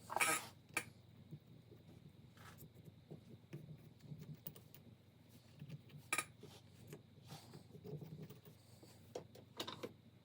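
Scattered metallic clinks and taps of tools and small engine parts being handled on a workbench, the sharpest just after the start and about six seconds in.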